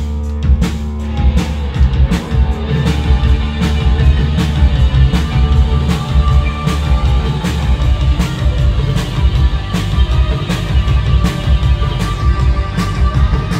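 Post-punk band playing live through a club PA: a steady drumbeat about twice a second under bass and guitar, with a heavy low end.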